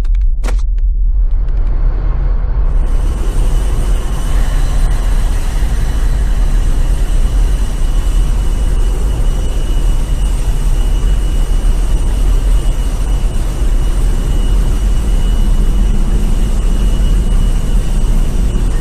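Loud, deep, steady engine rumble of an enormous Hummer rolling slowly past overhead, with a hiss that fills in above it a few seconds in.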